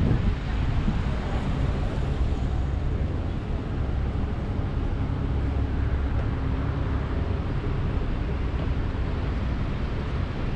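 City street background noise: a steady low rumble of traffic.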